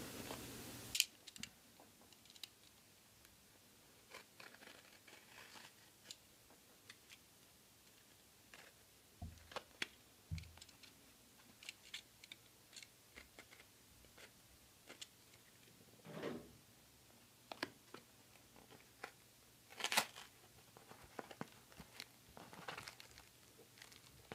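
Parcel unboxing: a taped cardboard box cut open with a snap-off utility knife and torn apart, heard as faint scattered clicks, scrapes and tearing, with a few louder snaps and rustles and a plastic bag crinkling.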